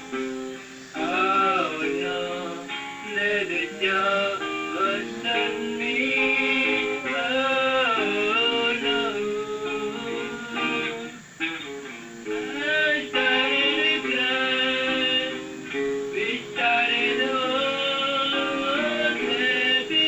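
A man singing a slow melody, holding and gliding between notes, while playing an acoustic guitar.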